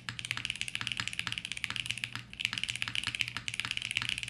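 Fast typing on a custom mechanical keyboard: a HIBI June silicone tray-mount case with an FR4 plate, lubed CK x Haimu Pastel Peach switches and CYL Sloth keycaps. The keystrokes come in a dense, even run, with a brief pause about two seconds in.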